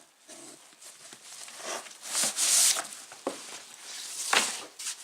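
Rustling and handling noise of gear being moved and packed, in several short noisy bursts, the loudest about halfway through and another near the end.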